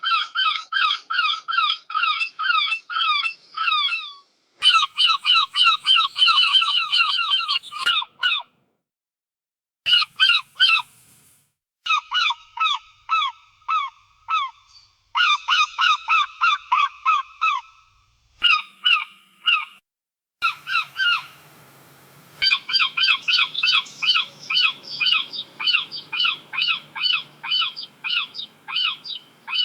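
Seagulls calling in a fast run of short, downward-sliding cries, about four a second, in bursts broken by a few brief silences and abrupt cuts.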